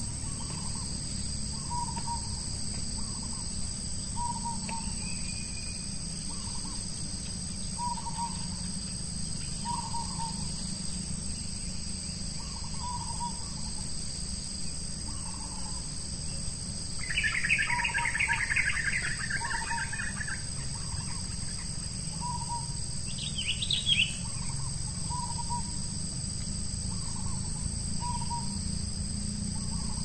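A bird repeats a short low hooting note about once a second. A burst of chattering bird calls lasts about three seconds just past the middle, and a short rising call follows a few seconds later. A steady high insect drone runs underneath.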